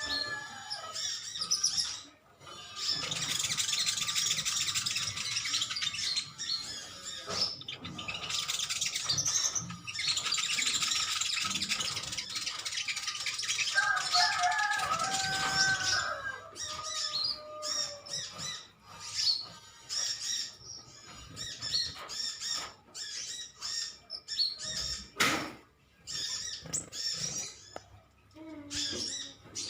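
Several sunbirds chattering and twittering together in rapid, high-pitched calls, a few lower whistled notes mixed in; after about halfway the chorus thins to scattered separate chirps.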